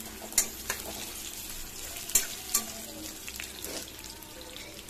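Sliced garlic, ginger and cumin seeds sizzling steadily in hot oil in a metal kadai while a metal spatula stirs them, clinking and scraping against the pan a few times, most sharply a little past two seconds in.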